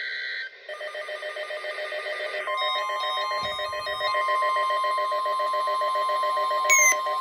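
Emergency Alert System alert tones from radio receivers. A data burst ends about half a second in, followed by a rapidly pulsing electronic multi-tone alert. A steady single tone joins it about two and a half seconds in, ahead of the severe thunderstorm warning message.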